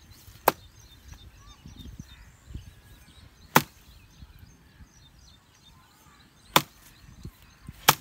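Axe chopping into a green sheesham (tahli) branch: four sharp strikes on the wood, the first three about three seconds apart and the last following quickly after the third.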